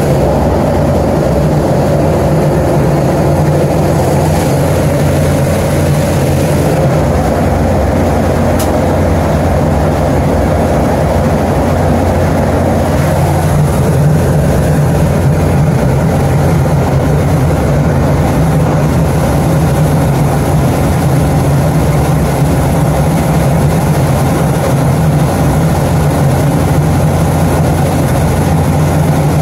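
Large Hartzell HVAC unit's blower fan and motor running steadily with a deep, even hum.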